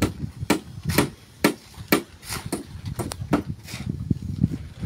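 Repeated sharp strikes of a hand tool at construction work, about two a second and slightly irregular.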